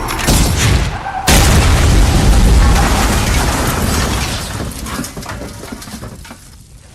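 Explosion sound effect: a sudden loud boom about a second in, with a deep rumble that fades away slowly over the following seconds.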